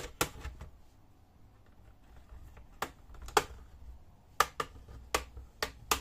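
Plastic retaining clips of an ASUS X553 laptop's top case snapping loose one after another as the case is pried apart from the bottom case: a series of sharp clicks, one at the start, then more, coming quickly in the second half.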